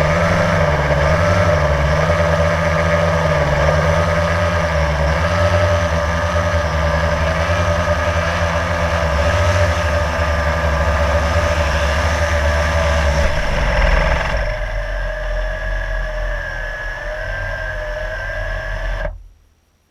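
Blade quadcopter drone's electric motors and propellers whining close up, heard from the GoPro it carries, with a pitch that wavers as the motors adjust. About thirteen seconds in, the deeper tones drop out and the whine runs quieter. The sound then cuts off suddenly near the end.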